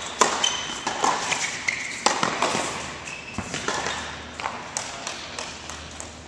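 Tennis balls being hit with racket strings and bouncing on a hard court, irregular sharp knocks with a few short high shoe squeaks in the first couple of seconds, in a large indoor tennis hall.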